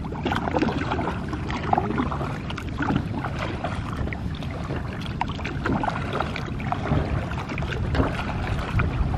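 Water splashing and lapping against a plastic kayak's hull as it is paddled, in small irregular splashes.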